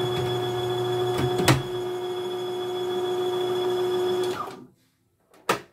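CNY E900 embroidery machine's motor running steadily while winding a bobbin, with a short click about a second and a half in. The motor winds down and stops about four and a half seconds in, and a single sharp click follows near the end.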